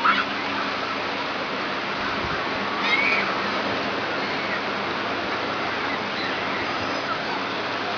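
Steady wash of shallow surf breaking and running up the shore, with a couple of short high calls near the start and again about three seconds in.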